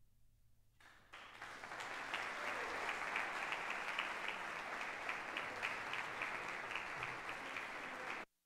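Audience applause, starting about a second in after a near-quiet moment and cutting off suddenly near the end.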